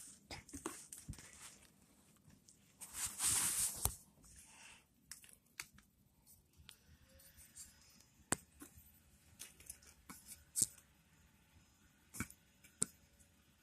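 Faint handling sounds: a short burst of rustling about three seconds in, then scattered light taps and clicks.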